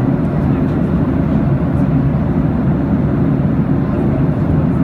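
Steady low-pitched cabin noise of an airplane in flight at cruising altitude, the engine and airflow noise heard from inside the cabin.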